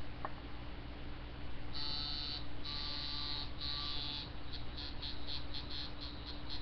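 Coil tattoo machine running at 5.5 volts with its springs freshly reset: a high buzz that starts about two seconds in, in three runs of under a second each, then breaks into short quick pulses, about three or four a second. This is a test run of the tune after the spring mounting slots were ground back, and it sounds right to the owner.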